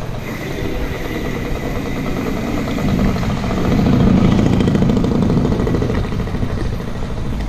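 Wind buffeting the microphone of a camera riding on a moving bicycle, mixed with road noise on wet pavement: a steady, loud rumble that swells for a few seconds around the middle.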